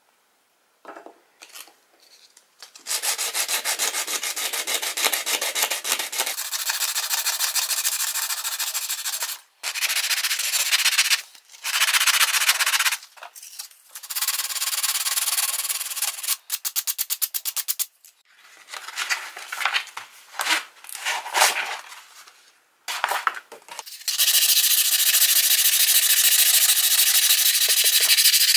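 Hand-sanding a hatchet's steel head with abrasive paper in quick back-and-forth scrubbing strokes, taking off the last rust and paint. It starts about three seconds in and runs in several stretches broken by short pauses.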